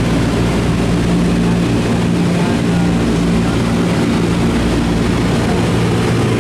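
Steady, loud drone inside the cabin of a Douglas C-47 Skytrain in flight, from its twin Pratt & Whitney R-1830 radial engines and propellers.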